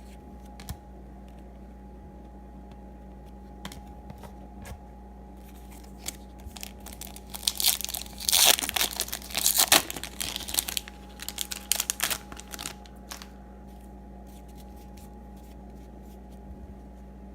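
A foil 2018 Topps Series 2 baseball card pack wrapper being torn open and crumpled, in a burst from about seven to thirteen seconds in, loudest near the middle. A few light clicks come before it.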